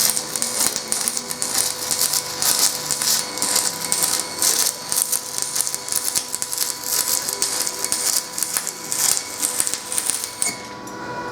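Stick-welding arc on aluminum: the aluminum electrode crackling steadily as it burns down fast, then cutting off abruptly near the end when the arc is broken.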